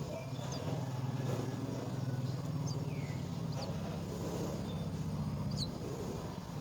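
A motor vehicle's engine running with a steady low hum that fades near the end, while a small bird gives several short, high chirps.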